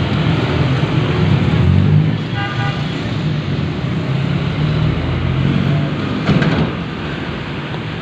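Road traffic and strong wind rumbling on the microphone, with a brief vehicle horn toot about two and a half seconds in.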